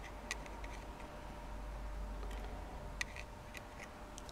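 Light, irregular metallic clicks and ticks of a hooked steel pick probing inside a BMW motorcycle's ignition trigger housing, feeling for a loose bob weight spring. There are about a dozen small taps, the sharpest about three seconds in.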